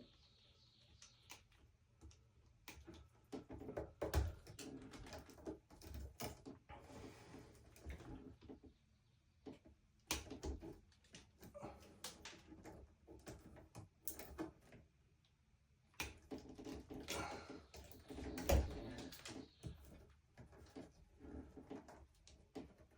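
Irregular knocks, clicks and rustles of work by hand in a small room, with a louder thump about four seconds in and another about eighteen seconds in.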